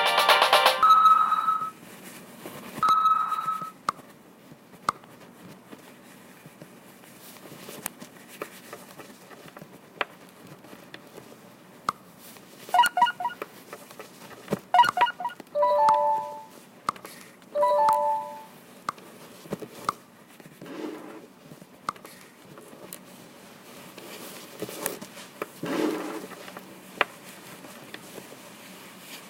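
Music that stops a second or two in, followed by sparse short beeping tones, a few short clusters of pitched tones and scattered clicks over a low background hiss.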